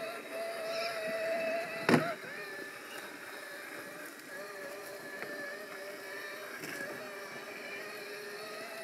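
Axial SCX6 1/6-scale RC rock crawler's electric motor and geared drivetrain whining as it crawls over rock. There is a single sharp knock about two seconds in, and after it the whine settles to a lower pitch.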